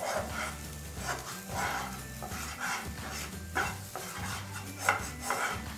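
A spatula stirring and scraping thick green pea paste around a non-stick frying pan, in repeated strokes about twice a second, as the paste fries in a little oil.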